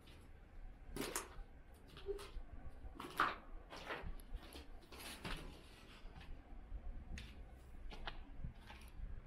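Footsteps of someone walking, about one step a second and uneven, each a short sharp scuff over a faint low rumble.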